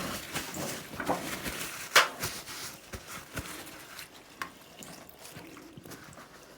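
Hands being washed at a sink: water splashing and dripping, with a sharp knock about two seconds in. After that the water sound thins out to occasional drips and small handling clicks.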